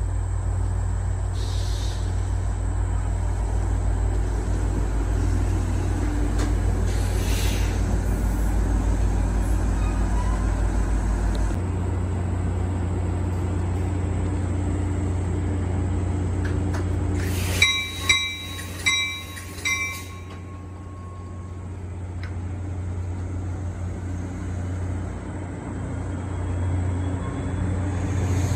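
NJ Transit push-pull passenger train, cab car leading, rolling in alongside the platform with a steady low rumble. About 18 s in, a bell rings a few strokes.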